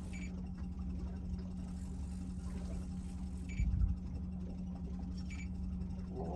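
Boat motor running steadily at trolling speed, a low even hum, with a single low thump about three and a half seconds in and faint light ticks now and then.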